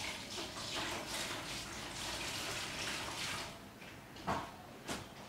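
Liquid dye scooped with a plastic spoon from a plastic bowl and poured onto tied-up fabric, splashing and trickling, followed by two short knocks near the end.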